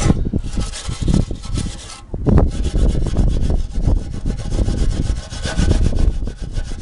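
Scouring pad scrubbing a metal lawnmower deck to clean off dirt and corrosion before painting: repeated rubbing strokes, with a short pause about two seconds in.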